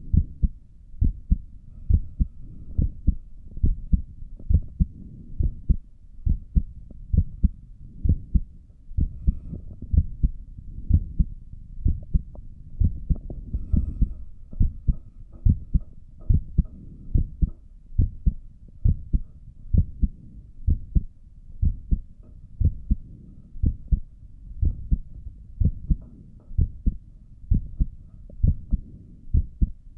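A person's resting heartbeat heard through a stethoscope: a steady lub-dub, paired low thumps about once a second.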